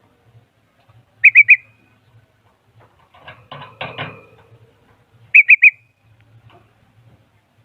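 Bulbul singing: a quick burst of three loud, high whistled notes, a rougher, noisier rattle about three seconds in, then the same three-note burst again about four seconds after the first.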